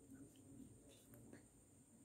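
Near silence: room tone with a few faint small clicks in the first second and a half.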